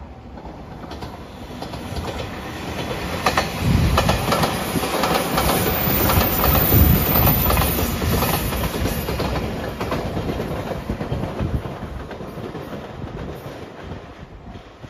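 JR Shikoku 8000 series limited express electric train passing, its wheels clicking over the rail joints. The sound builds, peaks in the middle as the cars go by, and fades as the train moves off.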